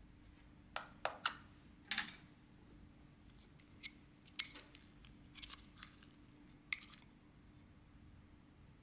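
Light clicks and clinks of kitchenware being handled: about a dozen irregular taps over several seconds, over a faint steady hum.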